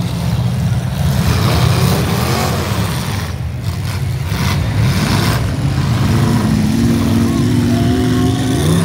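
Several demolition derby cars' engines running and revving loudly together, a dense steady mass of engine noise.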